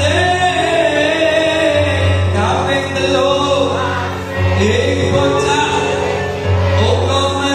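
A man singing a Javanese Islamic devotional song in a melismatic style with long, wavering held notes, amplified through a microphone, over a steady low accompaniment.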